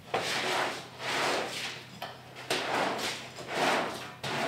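A long-handled cleaning tool scraping across a wet concrete floor in about four strokes, roughly one a second, over a steady low hum.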